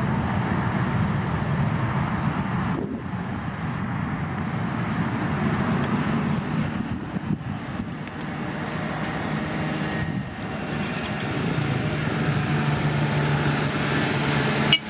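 CFM LEAP-1B turbofan engines of a Boeing 737 MAX 8 running loud and steady as the airliner decelerates along the runway on its landing rollout. A short sharp click near the end.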